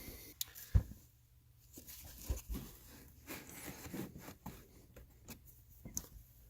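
Faint scratching, scraping and scattered clicks of hand work on a car's felt trunk liner as a 12 mm hole is marked and cut out, with one sharp click about a second in.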